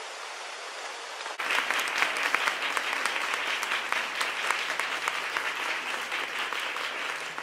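Audience applauding steadily, starting suddenly about a second and a half in after a faint hiss.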